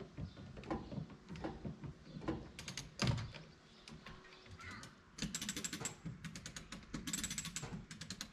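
A few metal knocks and clunks at the boat trailer, the loudest about three seconds in, then three short bursts of rapid ratcheting clicks as a ratchet is worked.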